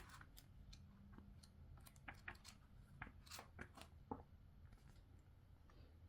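Faint, scattered clicks and rustles of packaging being handled during a Lego set unboxing, busiest in the middle.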